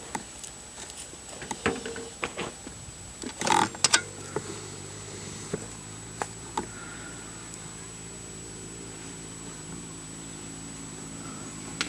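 A few knocks and handling noises, a louder rustle about three and a half seconds in, then an engine running steadily for the rest of the time.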